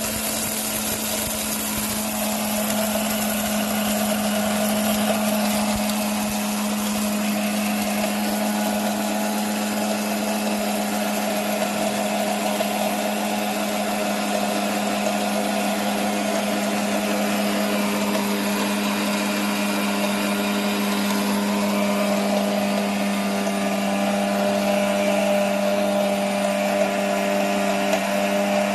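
Vision SBL-013 Jiyo+ 850 W blender motor running steadily at speed with a constant hum, grinding hard dried turmeric into powder in its stainless steel jar.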